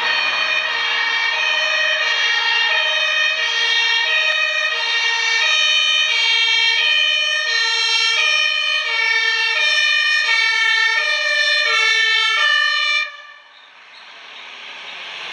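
German two-tone emergency horn (Martinshorn) on an LF 16/12 fire engine, alternating between a high and a low tone about once every 1.3 seconds, then cutting off suddenly about two seconds before the end. The truck's engine and road noise then swell as it approaches.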